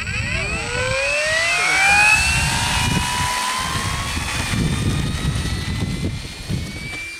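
FMS Sbach 342 model aerobatic plane's electric motor and propeller whining, rising steeply in pitch over the first two seconds as the throttle opens for the takeoff run, then holding a high steady whine that fades slightly near the end. A low rumble runs underneath.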